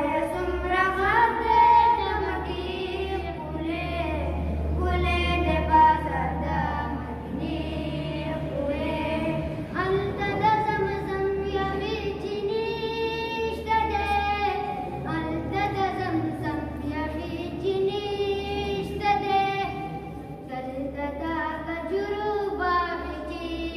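Young boys' voices singing a Pashto devotional nasheed about the streets of Mecca, unaccompanied, in long held melodic phrases with short breaths between them, over a low steady hum.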